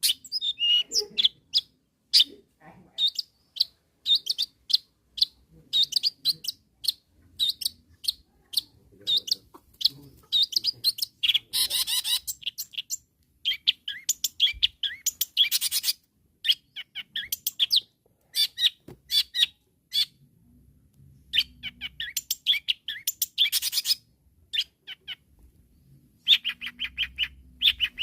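Long-tailed shrike (cendet) singing vigorously: quick series of short, sharp, high chirps, with a few harsher, denser rattling bursts between phrases and brief pauses.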